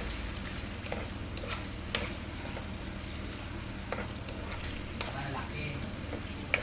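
Pork asado simmering and sizzling in sauce in a frying pan while a plastic spoon stirs it, with a few light knocks and scrapes of the spoon against the pan.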